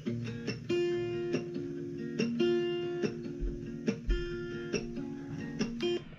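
Acoustic guitar music, plucked and strummed notes, starting suddenly and breaking off near the end: a stock music track being auditioned from an online music library.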